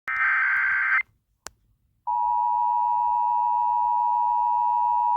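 Emergency Alert System broadcast tones: a one-second burst of harsh digital SAME header data, a click, then the long steady attention tone starting about two seconds in.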